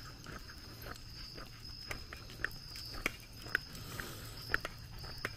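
Faint woodland ambience: a steady high insect trill over a low hum, with scattered light clicks and short chirps.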